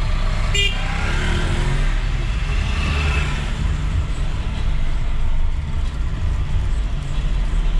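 Car driving slowly in town traffic, heard from inside the cabin: a steady low engine and road rumble. A short high beep sounds just after the start.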